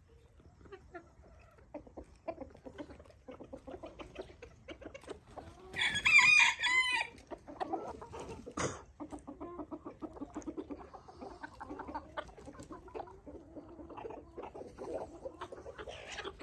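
A flock of chickens clucking and calling as they feed. About six seconds in, a rooster crows once, loud and lasting about a second.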